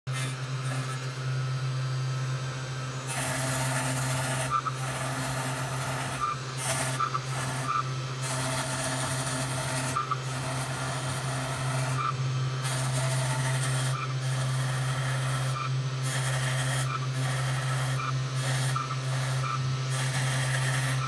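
MPCNC router machine engraving polystyrene foam: a steady low motor hum runs under a scraping, hissing cutting noise that comes and goes irregularly as the tool head moves and the bit works the foam.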